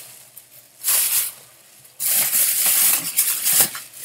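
Plastic shopping bag crinkling as it is handled, in two bursts: a short one about a second in and a longer one from about two seconds in.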